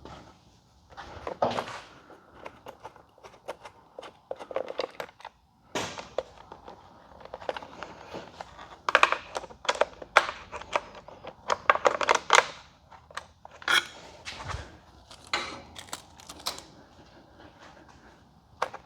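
Irregular clicks, knocks and scrapes of hand work on a motorcycle's plastic tail section as Phillips screws are backed out and the panels are handled.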